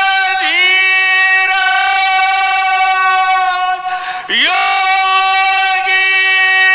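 Devotional aarti singing in long held notes. The pitch bends about half a second in, then dips low and slides back up about four seconds in.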